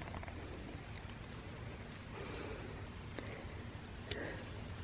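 Faint, short high chirps of a small bird, scattered irregularly over a quiet, steady outdoor background.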